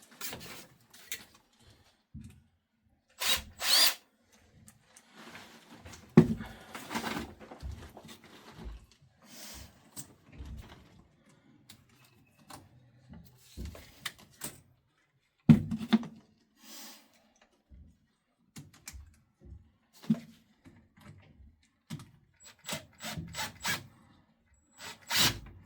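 Cordless drill driving hose-clamp screws on a rubber pipe coupling in short, stop-start runs, with sharp knocks and rattles from handling the pipe.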